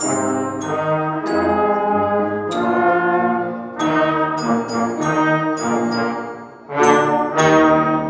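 Small beginning band led by trombone and trumpet playing a slow tune in held notes, with sharp ringing strikes at the start of many notes. The music dips briefly near seven seconds and then comes back for the closing phrase.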